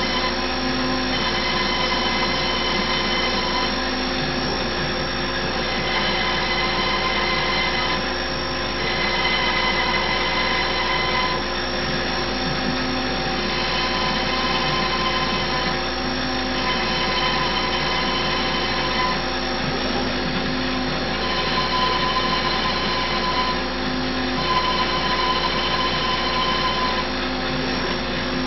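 CNC Router Parts 4848 router table countersinking holes in a spoil board: the router spindle runs steadily throughout. Whining tones start and stop every second or two as the machine moves between holes.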